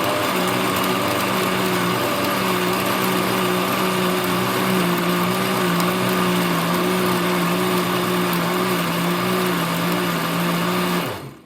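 Countertop blender running steadily, blending a milkshake of oats, protein powder, milk and water; its motor hum sags slightly in pitch partway through, then the blender is switched off near the end.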